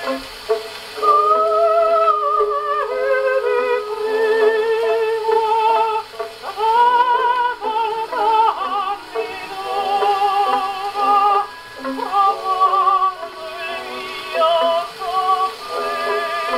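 HMV 102 portable wind-up gramophone playing a 78 rpm shellac record: a vocal-like melody with a strong vibrato, thin and without bass.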